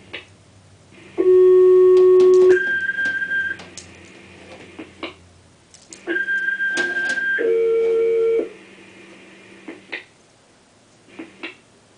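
Fire dispatch alert tones over a scanner radio: two sets of steady electronic paging tones, each pitch held about a second before jumping to the next, first low then high, then high then low, with short clicks between them.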